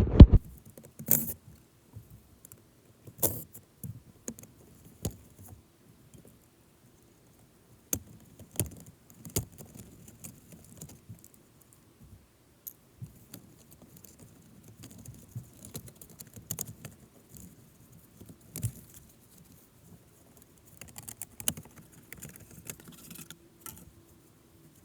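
Scattered metallic clinks, taps and light knocks of hand tools and small parts being handled, with short quiet gaps between.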